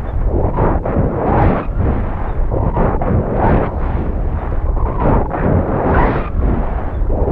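Wind rushing and buffeting over the payload camera's microphone as a high-altitude balloon payload falls under its parachute after the balloon has burst. A loud, unsteady rush that swells and dips every half second or so, with no tones in it.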